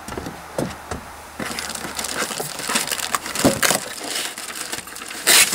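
Hands rummaging in a cardboard shipping box. A few knocks of cardboard come first, then from about a second and a half in a steady run of crackling, rustling packing material, loudest near the end.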